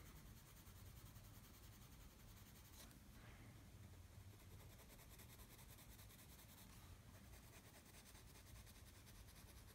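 Faint, steady scratching of a black Prismacolor coloured pencil shading on paper.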